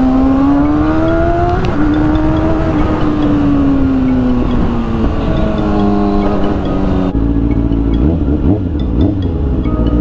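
Kawasaki ZX-6R 600 cc inline-four sportbike engine accelerating, its pitch rising for a second and a half, then dropping at an upshift and easing lower as the throttle comes off, with road and wind noise underneath. About seven seconds in the sound switches abruptly to a steadier, lower engine running note.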